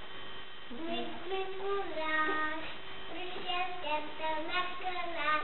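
A young boy singing a song, starting about a second in and holding notes as the tune steps up and down, over a faint steady mains hum.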